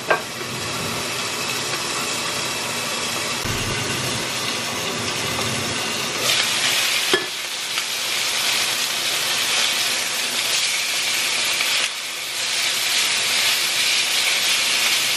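Chicken pieces frying in a frying pan: a steady sizzle that gets louder about six seconds in and again near the end as the pieces are turned, with a couple of sharp clicks of tongs against the pan.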